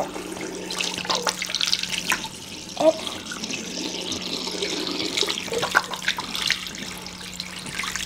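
Water running from a tap into a sink, with irregular splashing as a balloon is held under the stream.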